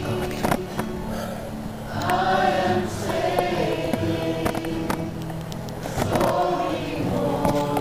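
Choral music: several voices singing sustained, slowly bending notes, with scattered sharp knocks and clicks over it.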